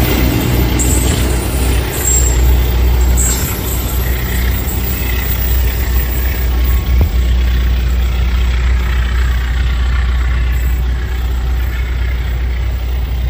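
Argo Wilis passenger train's last cars rolling past on the rails, then the train running away down the track: a steady, loud low rumble that barely fades.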